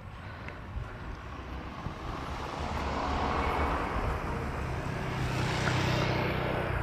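A motor vehicle going past: a rushing of engine and tyre noise with a low rumble that swells over the first few seconds and eases off near the end.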